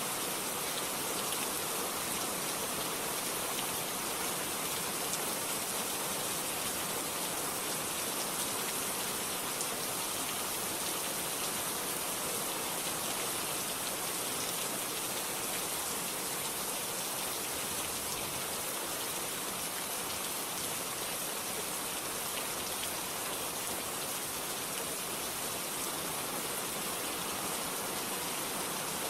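Steady rain falling, an even hiss with fine patter of drops and no thunder.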